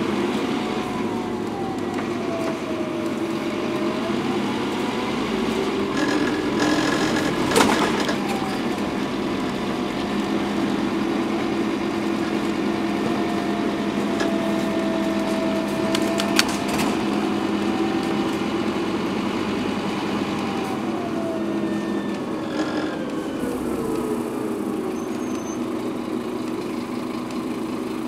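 Interior sound of a Scania N230UD double-decker bus on the move: a steady engine drone with a thin drivetrain whine that rises and falls with road speed and drops away near the end as the bus slows. There are occasional knocks and rattles from the body.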